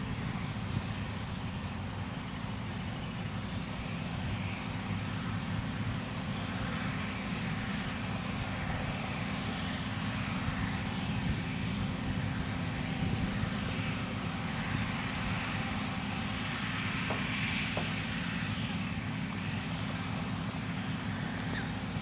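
Combine harvester working across the field while cutting oilseed rape, heard from a distance as a steady low rumble with a light hiss above it.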